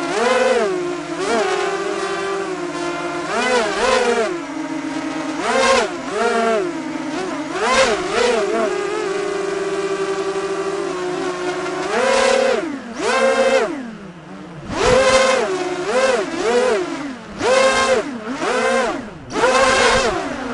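Small quadcopter's motors buzzing, the pitch swinging up and down as the throttle changes and holding steady for a few seconds in the middle. In the second half the throttle comes in short surges with quieter dips between.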